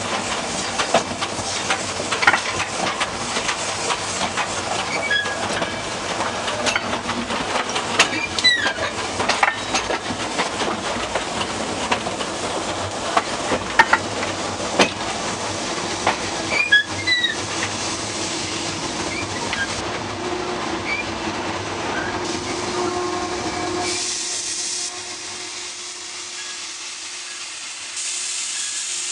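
Riding behind Peckett No.1438 steam locomotive: wheels rumbling and clattering over the rails, with steam hissing, frequent clanks and a few short high wheel squeals. The running noise drops away for a few seconds near the end.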